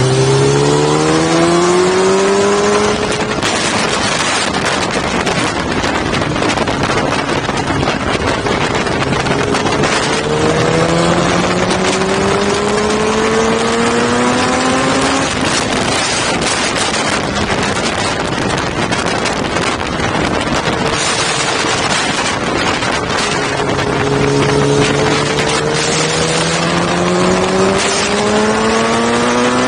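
Sport motorcycle engine accelerating at speed, its pitch climbing three times: at the start, again about ten seconds in, and again in the last third. Heavy wind rush on the microphone fills the gaps between.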